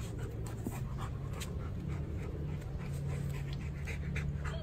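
A dog panting, over a steady low hum.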